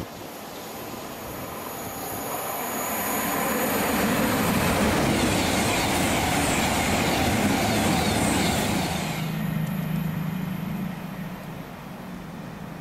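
A train passing close by on the main line: its wheel and rail noise builds over the first few seconds and stays loud for about five seconds. About nine seconds in the high hiss cuts off suddenly, leaving a low steady hum as the train draws away.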